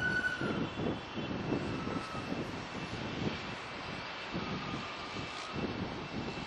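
Boeing 747-400F freighter's four turbofan engines running at taxi power: a steady high whine with a few thin tones that drift slightly in pitch, over an uneven, gusty low rumble.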